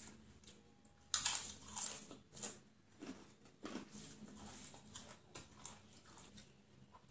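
Eating with the hand: a burst of loud crunching of crisp food about a second in, then quieter chewing and wet smacks of fingers mixing rice.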